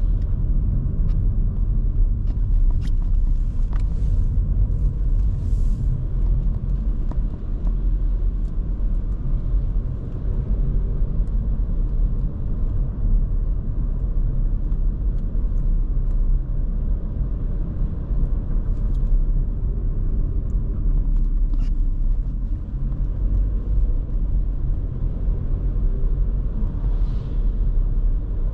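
Steady engine and road rumble from a 2023 Škoda Kamiq 1.0 TSI, a three-cylinder turbo petrol, on the move, with a few faint ticks over it.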